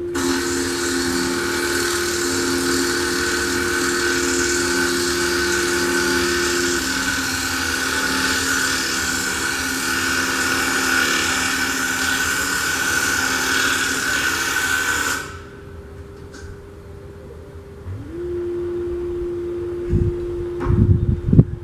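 A loud steady hiss over the steady hum of a running engine or machine. The hiss cuts off suddenly about fifteen seconds in. A few seconds later the hum's pitch dips and climbs back, and a few loud low thumps follow near the end.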